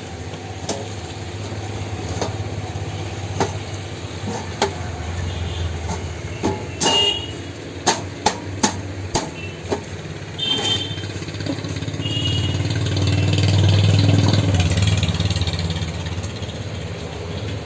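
A motor vehicle engine running, growing louder after about twelve seconds, with several sharp clicks near the middle.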